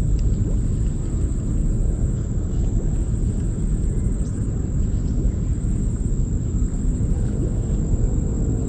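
A steady low rumble, with a faint thin high whine running above it.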